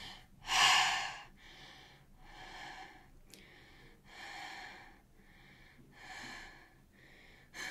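A person breathing deeply in and out, five slow breaths, pausing to catch his breath after reading aloud at length. The first breath, about half a second in, is the loudest.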